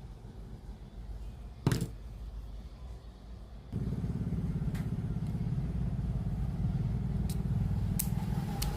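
A sharp click from the Sony CFS-1065S radio cassette player, then about two seconds later a steady low buzzing hum starts suddenly from the set and keeps going, with a few faint ticks over it.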